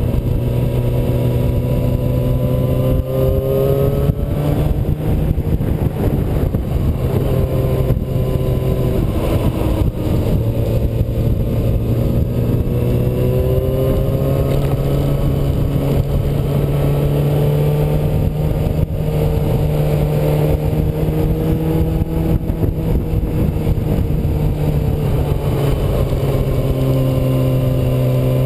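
Yamaha R6 sportbike's inline-four engine running at speed, its pitch rising and falling gently several times with the throttle, over heavy wind rumble on the bike-mounted camera.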